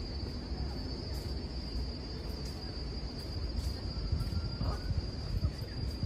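Steady high-pitched insect drone of tropical crickets or similar insects, unbroken throughout, over a low rumble that grows bumpier in the second half.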